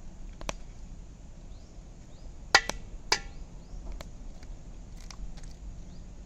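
An egg knocked twice against the rim of a metal bowl to crack its shell, each knock ringing briefly, with fainter clicks of shell before and after.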